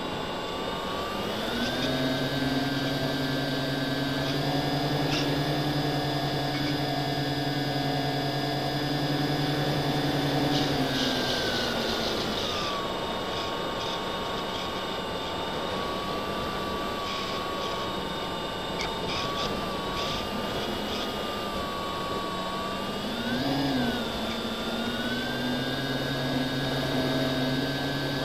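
FPV model aircraft's motor and propeller whine, heard through the onboard camera, with rushing air noise underneath. The pitch steps up a second or two in, drops about halfway through, gives a quick rise and fall near the end, then climbs again as the throttle changes.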